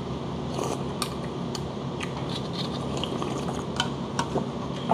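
Metal spoon and chopsticks clinking and scraping against ceramic dishes in light, scattered clicks. A steady low hum runs underneath.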